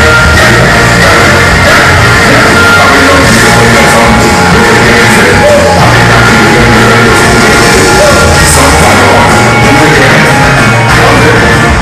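Live rock band playing loudly and without a break, with a voice singing or shouting over the instruments.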